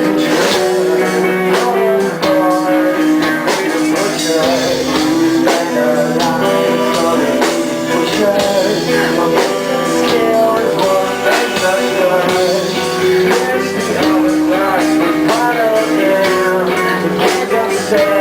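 Rock music played by a band: guitar over a steady drum beat.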